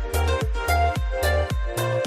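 Background electronic dance music with a steady kick drum about twice a second over a bass line and a plucked melody.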